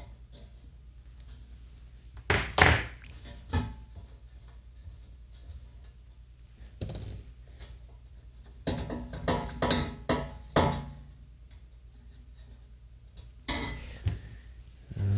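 Sharp metallic clicks and knocks from a hand tool and screws on a receiver's sheet-metal chassis cover as the cover screws are taken out. They come in several separate clusters, the busiest about nine to eleven seconds in, over a faint steady low hum.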